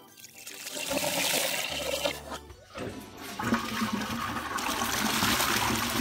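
Toilet flushing: a rush of water that builds up, dies down briefly about three seconds in, then surges again and keeps running.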